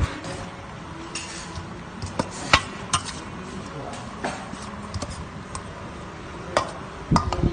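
A spoon tossing a wet seafood salad in a stainless steel mixing bowl, with irregular sharp clinks of metal on metal as it knocks the bowl.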